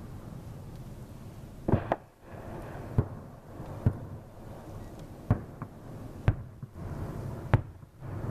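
Aerial fireworks shells bursting: about seven sharp bangs at irregular intervals, with a quick double bang about two seconds in, over a low steady rumble.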